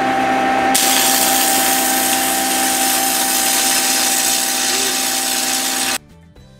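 Stick (arc) welding with a small 1/16-inch 6013 electrode: the steady hiss and crackle of the arc over a steady hum, growing fuller and brighter about a second in and cutting off suddenly near the end.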